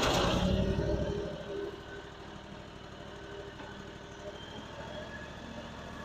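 Small engine of a Fland FL45 mini articulating wheel loader running. It is louder for the first second or so, then settles to a steady, lower drone with an even low pulse.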